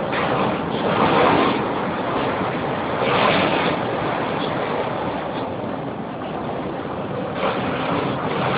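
Rough sea and wind rushing as seas break against a bulk carrier's bow and spray blows over its deck, with louder surges about one and three seconds in.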